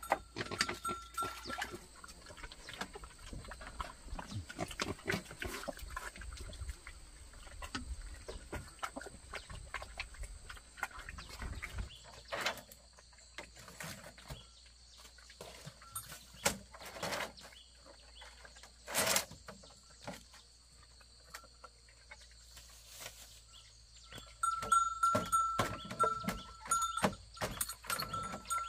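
Scattered knocks and clatter of bamboo poles being handled, with one sharp knock about two-thirds of the way through. Near the end an animal calls over and over in a high, thin voice.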